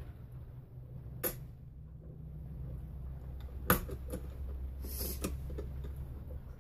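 Miniature aluminium floor jack being worked by its handle: a handful of small metallic clicks and taps, the sharpest about three and a half seconds in, over a low steady hum.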